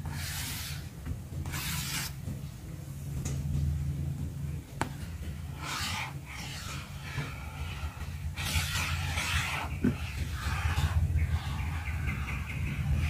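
Fingers and hands rubbing and brushing against a cardboard box, several short scraping swishes, over a steady low hum.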